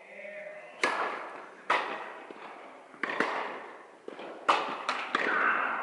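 Tennis serve and rally: a string of sharp pops from racket strikes and ball bounces, six or seven in all, each ringing on in the echo of a large indoor hall.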